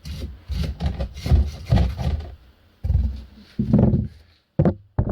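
Hand scrubbing on a brake caliper piston to clean it: quick back-and-forth rubbing strokes about three a second, then a couple of longer, slower strokes. A few sharp knocks follow near the end.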